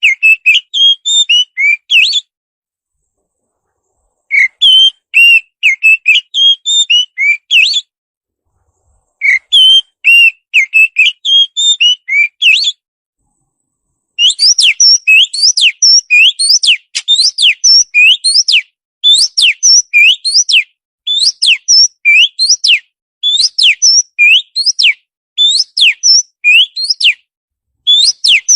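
Songbird song from a masteran training track: three warbling phrases of quick high chirped notes with short silent gaps, then from about halfway a steady run of repeated sharp upswept whistles in short groups.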